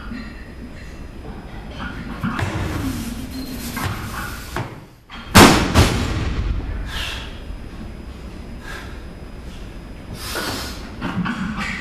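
A barbell loaded with 185 kg of bumper plates is dropped from overhead onto wooden jerk blocks about five seconds in. There is one loud slam, then a smaller rebound knock just after.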